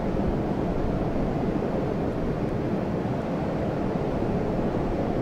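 Steady low rumble of a large COSCO Shipping container ship under way, mixed with water wash and wind on the microphone.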